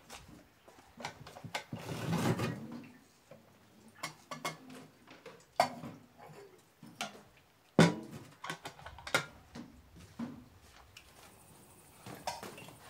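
Water poured from a kettle into an enamel mug, a rushing sound about two seconds in lasting roughly a second, followed by several sharp knocks and clinks.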